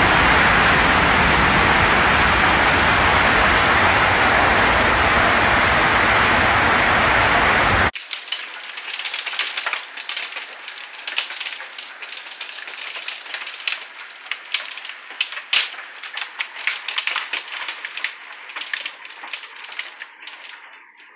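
Heavy hailstorm downpour, a loud dense steady rush, which cuts off suddenly about eight seconds in. Then hailstones tick and tap rapidly against a window pane and a wooden deck, fading near the end.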